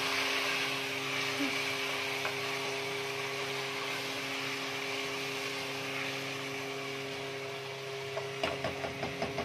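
Onions, tomatoes and masala frying in a non-stick pan: a steady sizzle over a steady low hum, with a run of quick knocks near the end as a spatula stirs against the pan.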